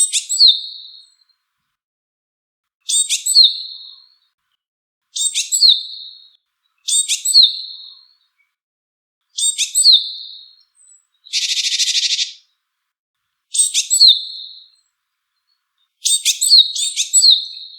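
Japanese tit calling: short bright clusters of sharp notes, each ending in a falling whistle, repeated about every two seconds. One harsh buzzing call of about a second comes about two-thirds of the way through.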